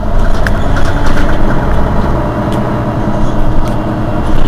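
Mercedes-Benz Citaro city bus engine idling steadily while the bus stands stationary.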